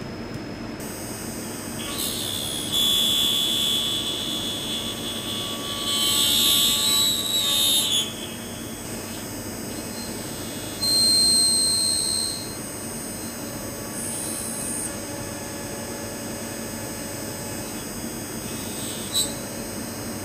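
Milling-machine spindle running steadily while a small end mill cuts the metal tensioner of a lock pick, with loud high-pitched cutting squeals in several stretches, from about two to eight seconds in and again around eleven and fourteen seconds. A short sharp click comes near the end.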